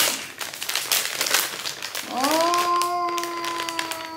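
Clear plastic packaging bag crinkling and rustling as a soft blanket is pulled out of it. About halfway through, a drawn-out vocal sound comes in, sliding up at first and then held on one steady note for about two seconds.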